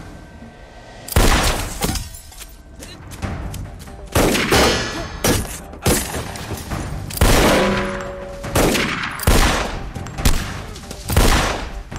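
Gunfire in a film shootout: a string of pistol shots, roughly one a second at irregular intervals, each sharp crack trailing off in an echo, with film score music underneath.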